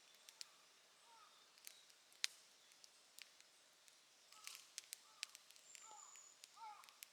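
Wood fire crackling with irregular sharp pops, one louder pop about two seconds in and a cluster of them around four and a half to five seconds. Faint bird calls sound in the background throughout, with one thin high whistle near the end.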